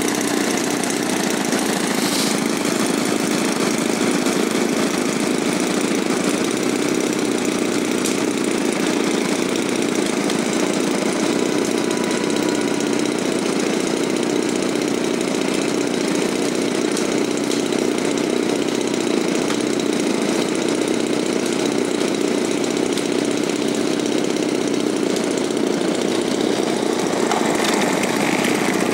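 A small engine running steadily at an unchanging pitch and loudness.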